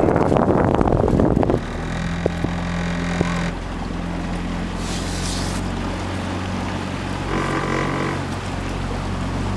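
Boat engine running with a steady low drone. For the first second and a half, wind buffets the microphone loudly.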